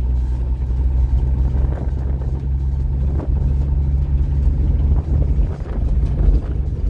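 Chevrolet Kommando's straight-six engine running at a steady speed while driving, heard from inside the cabin, with tyres rumbling over a gravel road.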